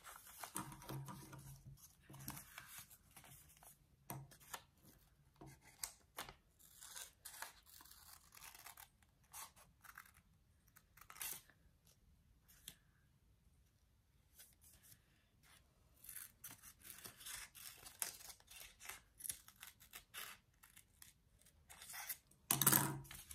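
Small children's scissors snipping into folded origami paper, a few short cuts at a time, with paper rustling between. There is a quieter stretch about halfway, a denser run of snips after it, and a louder handling noise near the end.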